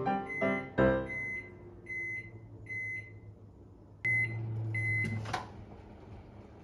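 Microwave oven running with a low hum while reheating frozen food, with a run of short high beeps from its control panel. About four seconds in the hum starts again with two more beeps, and a little after five seconds it stops and the door opens with a click.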